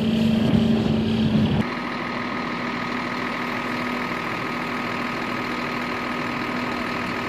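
AMX-10 RC armoured car's engine running under load as it drives over rough, rocky ground. About a second and a half in, a sudden cut switches to the steady sound of military vehicle engines idling, with a constant high whine over a low hum.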